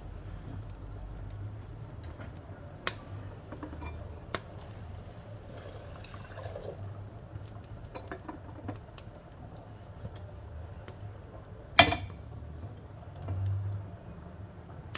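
Wood fire burning in a wood-burning cookstove: a steady low rumble with scattered sharp crackles and pops, the loudest pop about three-quarters of the way through.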